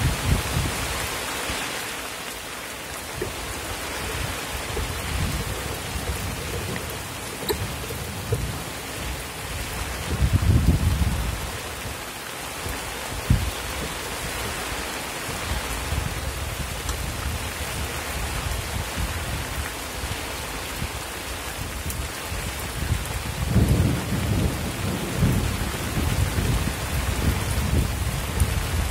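Steady rain falling on the reservoir's surface, with low rumbles about ten seconds in and again through the last several seconds.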